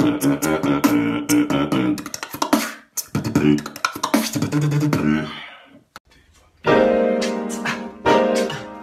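Beatboxing: quick vocal drum sounds, clicks and snares, mixed with hummed pitched notes. It fades out a little past the middle, and after a short gap a keyboard plays sustained chords under beatboxed drum beats.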